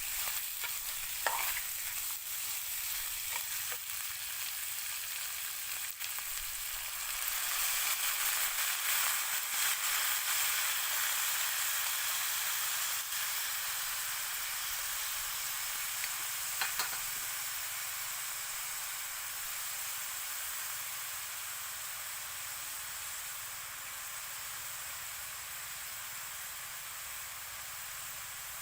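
Beef and green onion sizzling as they fry in a pan, with a few short clicks of a utensil. The sizzle grows louder several seconds in, then slowly dies down.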